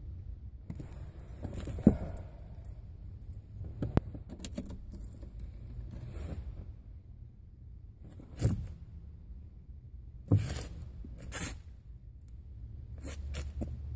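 Scattered clicks and rustles of a boot shifting on a car's pedals, over a low steady hum, with the engine not yet started.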